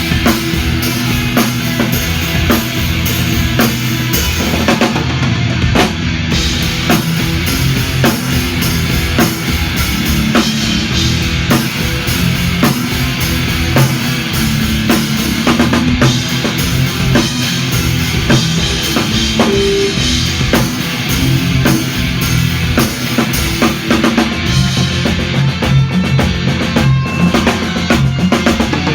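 Punk rock band playing, with a loud, busy drum kit of kick drum and snare hits driving the music.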